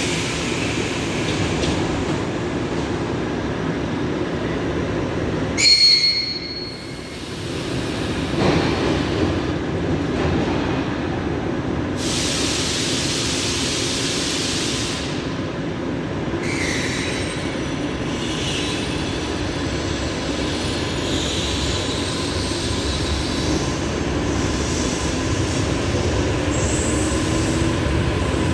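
ED4M electric multiple-unit train running at the platform, a steady rail rumble. About six seconds in there is a brief loud high-pitched tone, and about twelve seconds in a few seconds of hiss.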